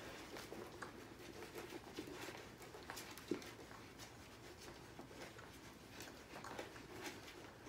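Faint suckling and smacking of 3-week-old Siberian Husky puppies nursing, a steady run of small, irregular wet clicks, with one sharper click a little over three seconds in.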